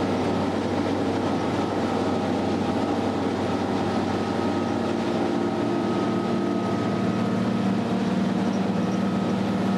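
Boat engine running steadily under way, a constant drone with a low hum.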